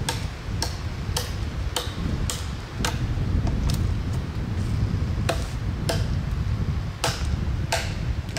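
Repeated strikes on wood, about one every 0.6 s, with a short pause in the middle; each knock rings briefly. Steady wind rumbles on the microphone underneath.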